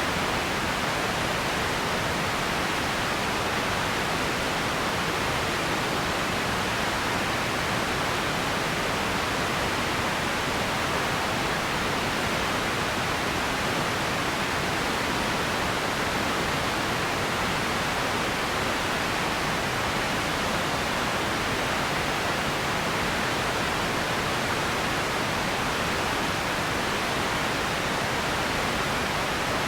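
Radio static: a steady, even hiss that does not change.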